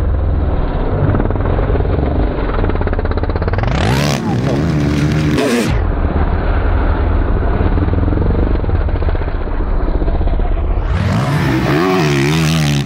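Motocross dirt bike engines running hard over a continuous low rumble, the engine note rising and falling as the throttle is worked, about four seconds in and again near the end.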